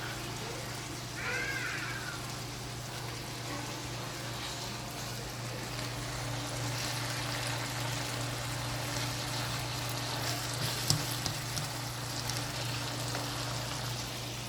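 Food sizzling in a pan on a cooktop over a steady low hum, with a sharp clack about eleven seconds in.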